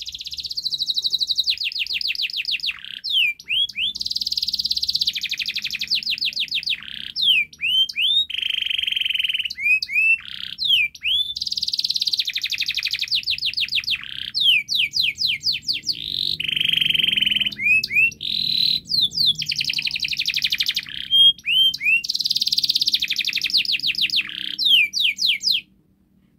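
Domestic canary singing a long, nearly unbroken song of rapid rolling trills and sweeping whistled notes, changing from one phrase to the next every second or two. The song stops abruptly near the end.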